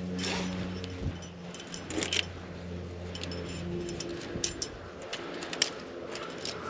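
Metal climbing gear on a harness rack, carabiners and cams, clinking and jingling in short irregular clicks as a trad climber moves up a crack, over a low steady hum.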